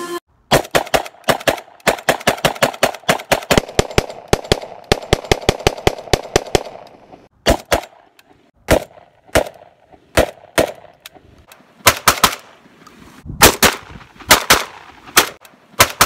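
Saiga 12 semi-automatic 12-gauge shotgun firing: a fast string of shots, about four or five a second, for the first six seconds or so, then slower, irregular single shots and quick pairs.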